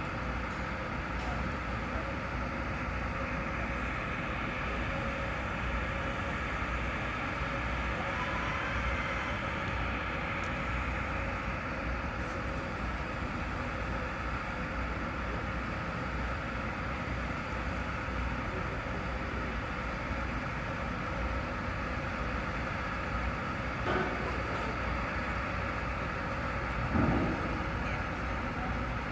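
Steady mechanical background noise with a faint constant hum running through it, and a brief low bump near the end.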